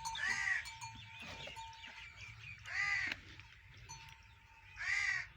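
Three short, high animal calls, each about half a second long and roughly two seconds apart, over a faint steady whine.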